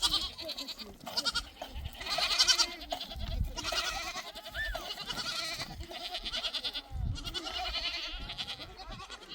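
A flock of sheep and goats bleating, many quavering calls overlapping one another without a break.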